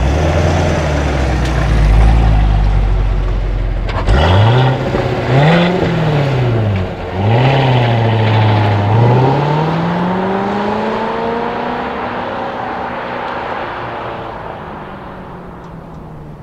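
2017 Chevrolet Corvette Stingray's 6.2-litre V8 rumbling at low revs, then accelerating away through the gears: the pitch rises, drops back at each upshift and rises again. It fades as the car pulls off into the distance.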